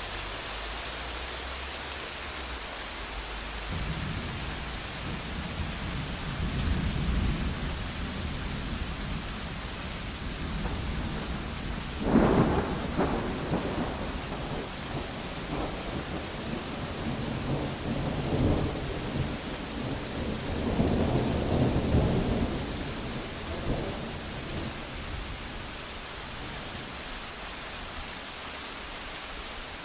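Steady rain falling on wet ground, with thunder overhead: a low rumble builds a few seconds in, a sharp, loud clap comes near the middle, then rolling rumbles die away toward the end.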